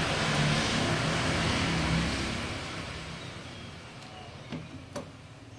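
A passing motor vehicle: a swell of road and engine noise with a low hum that fades away over the first three seconds or so. A few light clicks follow near the end.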